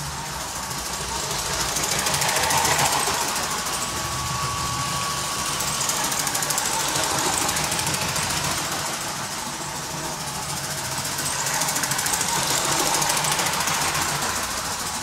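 Toy building-block trains with small electric train motors running on plastic track: a fast, steady rattle of wheels and motors that swells as the trains come close, about three times.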